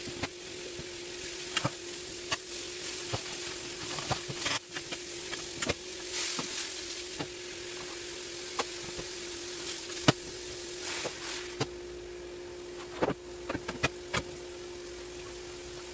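Mushrooms and onions sizzling in butter in a stainless steel skillet, a steady hiss over a low hum. Sharp clicks and knocks of utensils come and go, with a cluster near the end as a knife cuts steak on a wooden board.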